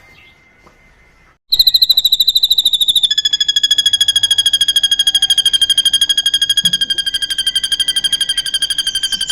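Drongo (srigunting) song from a bird-tutor recording: after a second and a half of near-quiet, a long, loud, rapid, very even trill on a high note starts and runs on without a break, with a lower note sounding along with it.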